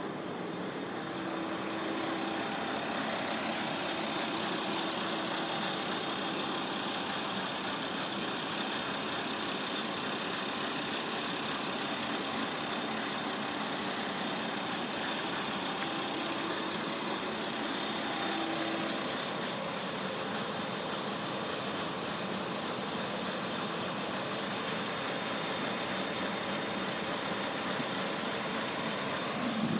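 Diesel railcar engine idling: a steady, unchanging drone from a Kominato Railway KiHa 200 standing at the platform.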